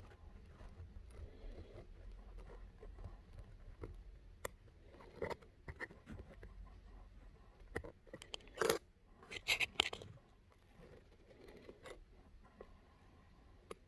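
Fingers scratching and rubbing against skin right at the microphone, with scattered sharp clicks; the loudest scrapes come a little past halfway.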